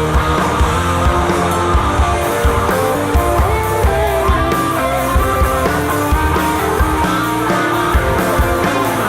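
Stoner rock band playing live: guitars over bass and drums, with a steady beat of about three hits a second.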